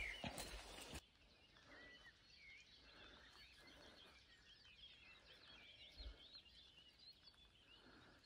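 Faint birdsong from several birds, many short chirps and twitters over quiet open-air ambience. In the first second, a few footsteps on a grassy path.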